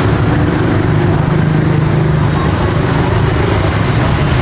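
Steady road traffic noise with vehicle engines running past, a low engine hum briefly strongest a little over a second in.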